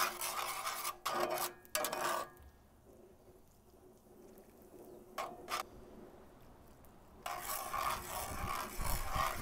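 Metal spatula scraping and stirring a beer-and-roux sauce in a cast-iron skillet in rasping strokes. The scraping stops for a few seconds in the middle, with one short stroke, and resumes near the end.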